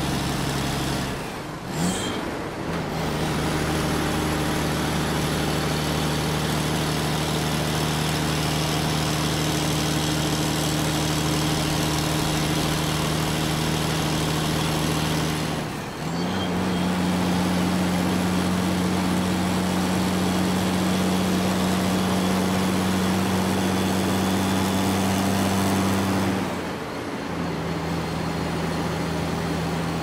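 Large truck engine running steadily under way. Its drone dips briefly with a short click about two seconds in, steps up in pitch about 16 seconds in, and drops back near the end.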